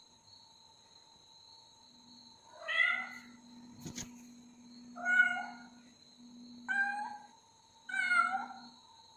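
Kitten meowing four times, short calls a second or two apart, wanting to be let out through the closed door. A sharp click comes about four seconds in.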